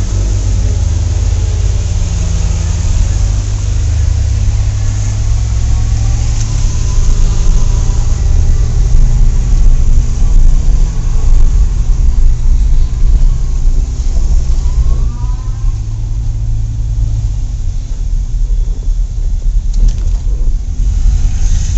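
Car engine and road noise heard from inside the cabin of a moving car: a steady low rumble.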